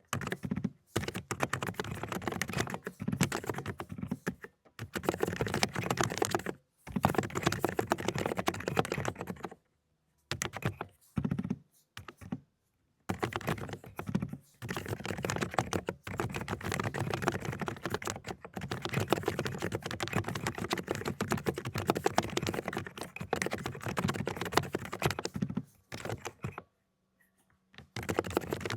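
Fast typing on a 독거미 (Aula) mechanical keyboard with silent cotton-candy switches: dense runs of muted keystrokes broken by short pauses, the longest about ten seconds in and near the end.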